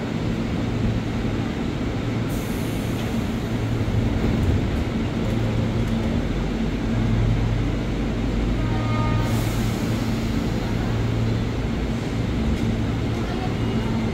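JR 205 series electric commuter train standing at the platform, its equipment giving a steady hum. Two short hisses of air come about two seconds in and again about nine seconds in, while the train's doors close.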